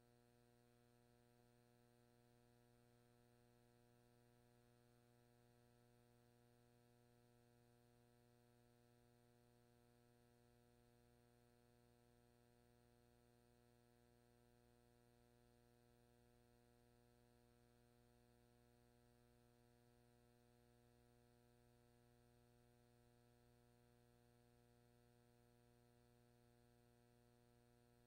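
Near silence: only a faint, steady hum with overtones.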